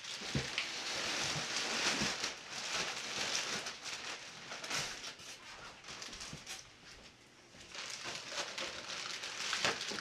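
Plastic packaging bags rustling and crinkling as wrapped model-plane parts are handled and moved in a styrofoam box, with small scrapes and taps, quieter for a moment about seven seconds in.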